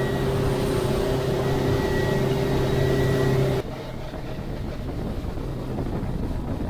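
Motorboat engine running steadily at cruising speed, with wind and water rushing past, heard from on board. About half-way through it cuts to a quieter, steady rush of engine and water.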